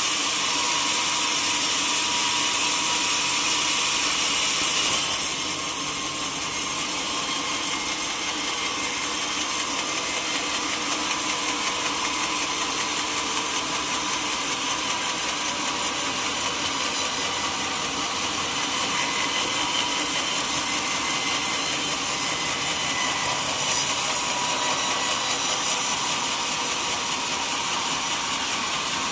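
Sawmill saw cutting through teak wood, a steady high-pitched hiss of blade in wood. There is a brief louder moment about five seconds in.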